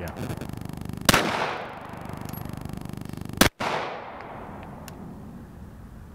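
Two pistol shots about two and a half seconds apart, each followed by a fading echo. The audio drops out for a moment right after the second shot.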